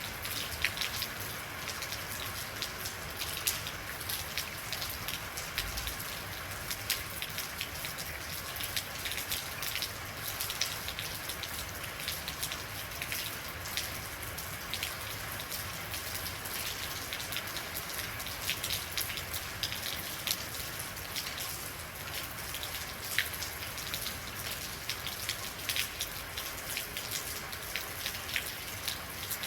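Steady rainfall: an even hiss of rain with many individual drops ticking sharply on a hard surface.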